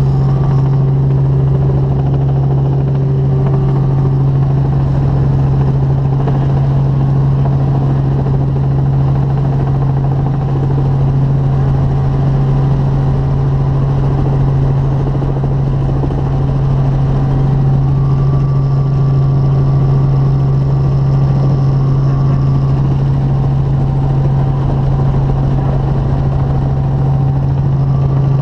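Light helicopter in flight, heard from inside the cabin: the steady, loud drone of engine and rotors, with a strong low hum that never lets up.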